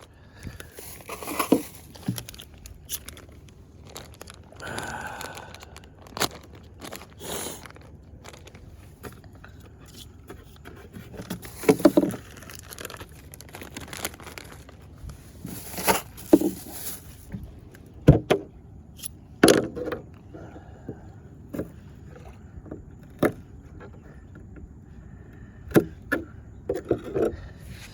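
Scattered clicks, knocks and scrapes of hands handling shrimp bait and small fishing tackle.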